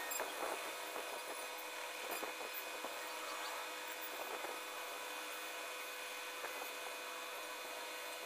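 Graphite pencil scratching on paper in irregular shading strokes, over a steady background hum and hiss.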